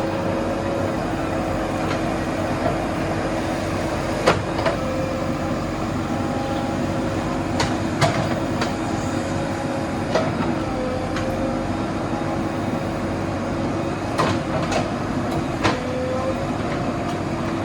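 Backhoe loader's diesel engine running steadily with a whine that wavers a little in pitch as the hydraulics work, broken several times by sharp metal clanks from the arm and bucket.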